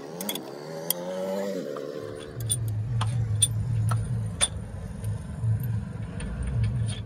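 A motor vehicle engine running: its pitch rises over the first two seconds, then it settles into a low, pulsing rumble. Sharp metallic clicks of parts being handled are heard throughout.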